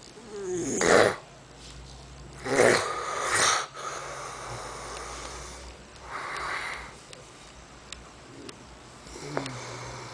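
A person snoring loudly in rough, rasping breaths: two loud snores about a second in and around three seconds, then softer ones near six and nine seconds.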